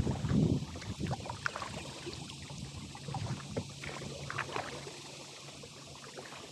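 Kayak paddle strokes: the blade splashing into the water and water dripping and trickling off it, loudest in the first second.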